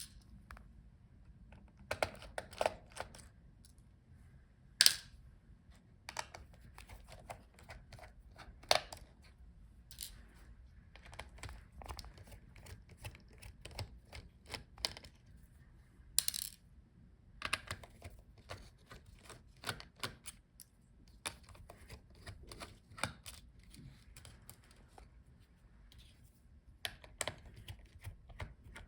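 Small screws being removed from a laptop's motherboard and set down: scattered light clicks and taps, with a few louder clicks.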